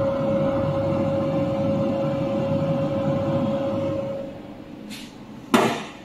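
Jewelry laser welding machine running with a steady hum that has one held tone, which dies down about four seconds in. A single sharp click follows near the end.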